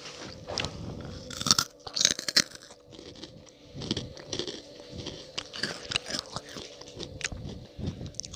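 Hot Cheetos being bitten and chewed close to the microphone: irregular crisp crunches, the loudest about one and a half to two and a half seconds in, then softer chewing with scattered cracks.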